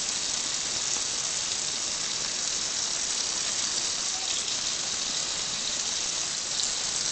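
Kitchen tap running steadily, its stream splashing over hands and a duck wing into a stainless steel sink.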